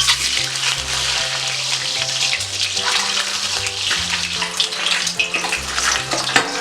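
Whole boiled eggs sizzling as they fry in hot vegetable oil in a kadai, a steady dense hiss with occasional sharper crackles. Background music with slow low notes plays underneath.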